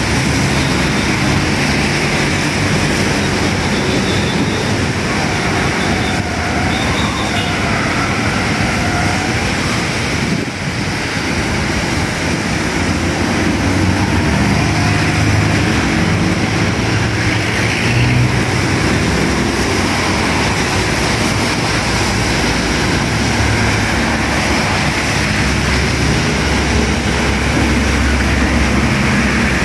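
Steady passing traffic on a rain-soaked road: motorcycles, minibuses and cars going by with engine noise over a constant hiss of tyres on wet pavement. Near the end a heavy truck's engine adds a deeper rumble.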